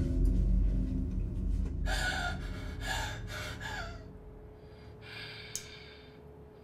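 A woman gasping for breath: four or five short, ragged gasps about two seconds in, then a softer breath and a small click near the end. Under them a low rumbling drone fades out over the first few seconds.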